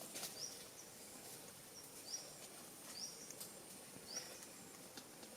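Faint forest ambience with a steady hiss: a short, high chirp that rises in pitch repeats about once a second, with a few soft clicks between.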